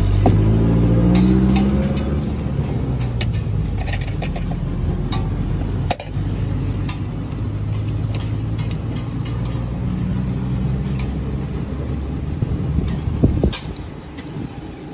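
Motor vehicle engine running close by, its pitch rising as it speeds up in the first two seconds, then a steady low engine hum, with scattered light clicks and knocks.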